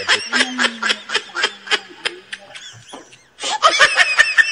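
High-pitched laughter in quick repeated bursts, about five a second, breaking off briefly a little after three seconds in and then starting again.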